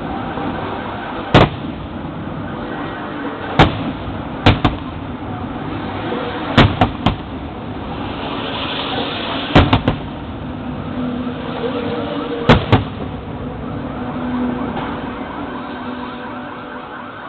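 Fireworks shells bursting: about a dozen sharp bangs, several in quick pairs or threes, over a steady background rumble. Around the middle there is a brief high hiss.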